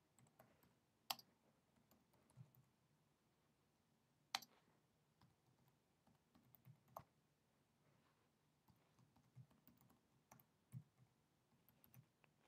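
Faint, scattered computer keyboard key presses, single clicks a second or more apart.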